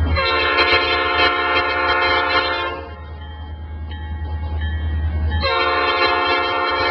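Approaching diesel locomotive's air horn sounding two long blasts, several notes together as a chord, with a gap of about three seconds between them.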